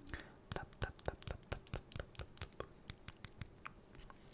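Fingernails tapping and scratching on a vinyl Funko Pop figure of Dr. Neo Cortex held close to the microphone: quick, irregular clicks, several a second.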